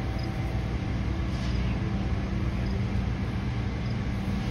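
Steady low mechanical hum, engine-like, holding one constant drone with no change.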